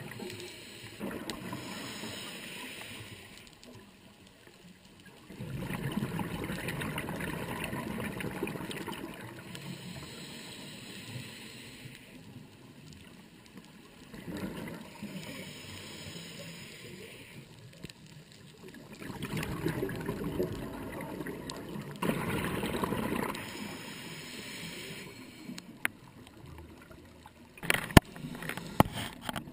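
Scuba diver breathing through a regulator underwater: exhaled bubbles gurgle and rush in swells every few seconds, with quieter gaps between breaths. A few sharp clicks near the end.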